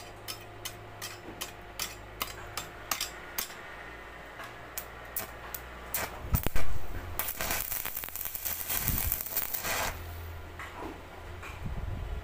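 Stick welder arc-welding a joint on a mild-steel rebar frame. A run of light clicks comes first, then a loud crack as the arc strikes about six seconds in, then about two and a half seconds of crackling arc that stops abruptly, all over a low hum.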